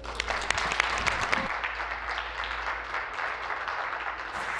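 Legislators applauding: many hands clapping together, loudest in the first second and a half, then settling into steady applause.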